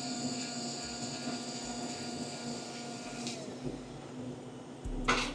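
Self-serve cappuccino machine dispensing, its motor whirring steadily, then stopping about three seconds in with a slight drop in pitch. A short noisy clatter comes near the end.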